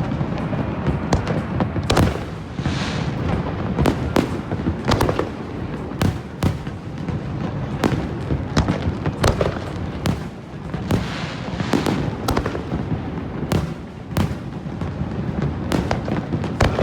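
Fireworks display: a continuous run of shell bursts, sharp bangs every second or so over a steady rumble and crackle.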